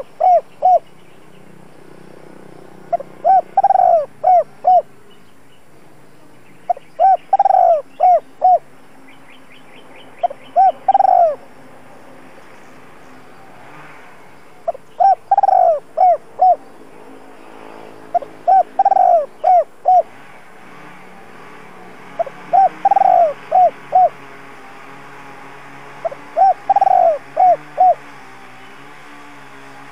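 Spotted dove cooing: a repeated phrase of a few short coos around one longer, louder coo, given about every four seconds. Faint high chirps of other birds sound briefly in the background.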